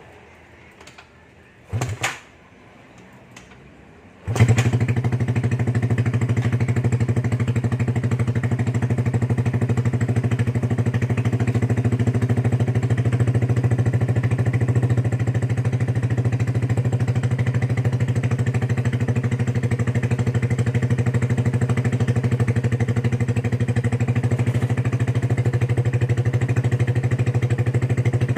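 Motorcycle engine with a Vmax conical four-cut aftermarket exhaust being cold-started. A few clicks and a brief burst come first, then the engine catches a little over four seconds in and settles into a steady idle through the exhaust.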